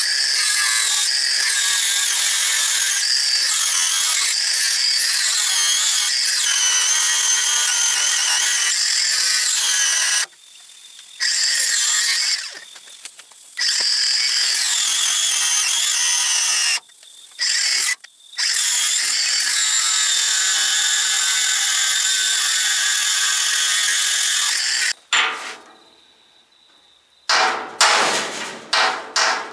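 Angle grinder running on the steel chassis rail to grind off rivet heads, its whine shifting in pitch as it loads up and stopping several times between cuts. Near the end, a quick run of hammer blows on a punch, driving the rivets out.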